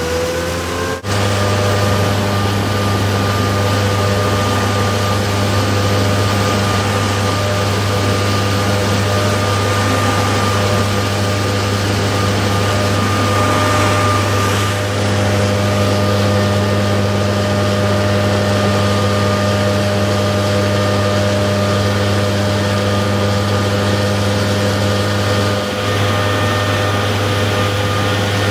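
Engine-driven blower of a hail simulator running steadily at speed, pushing simulated hail out through a wide flexible hose. Its pitch climbs and settles in the first second, then holds as a steady hum and hiss.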